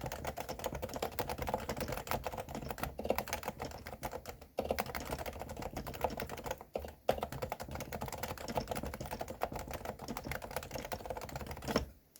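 Continuous fast typing on a Realforce R2 Silenced keyboard with 45 g Topre capacitive switches: a dense stream of key strokes. It pauses briefly twice and stops just before the end.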